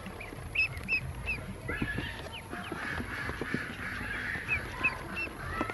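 Yellow ducklings peeping: short high chirps come every so often, the loudest about half a second and one second in and again near the five-second mark. Small soft taps run beneath the chirps as the ducklings peck feed and dabble at a water cup in a plastic basin.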